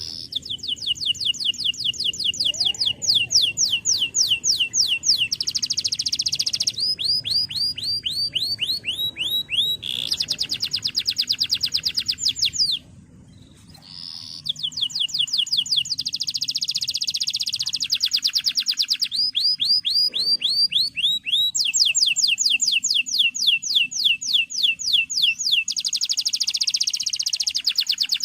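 Male domestic canary in full song: fast rolling trills, each a rapid run of repeated falling notes, switching to a new trill every second or two, with one short break about halfway through.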